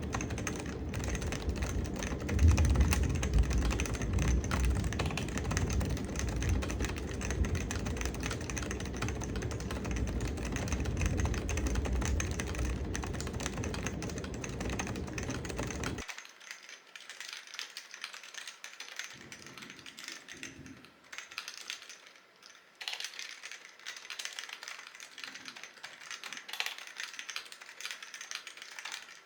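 Typing on a Topre Realforce 101 keyboard with aged, variable-weight rubber-dome (Topre) switches: a fast run of muted, thocky keystrokes. About two thirds of the way in, a deep rumble under the typing stops abruptly, and the keystrokes go on sparser and quieter.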